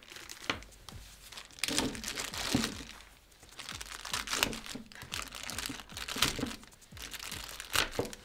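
Clear plastic packaging bag crinkling as hands pull and press on it, in irregular crackles with short quieter pauses.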